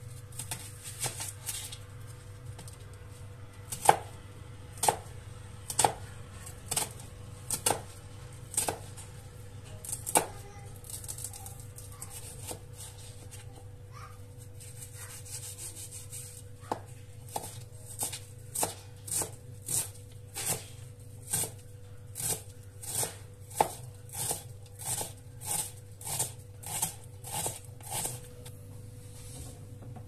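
Kitchen knife chopping onions on a cutting board: slow separate cuts about once a second at first, then after a pause quicker, even chops about two a second until near the end.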